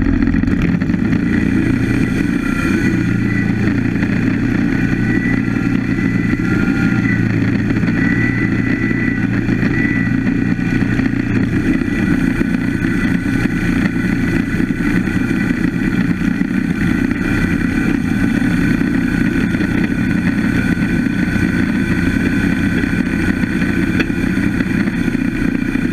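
Wood-Mizer LT15 Go portable band sawmill running steadily as it slabs a pine log. Its engine runs at an even pitch under a faint high whine, with a slight change in tone about 11 seconds in.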